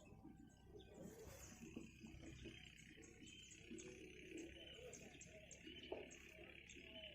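Faint outdoor ambience: birds chirping, and a steady insect trill that starts about a second in.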